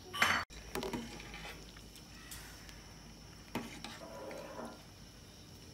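Metal ladle stirring rice porridge in a stainless steel pot, with a few light clinks and scrapes against the pot. A brief loud burst of noise in the first half-second cuts off sharply.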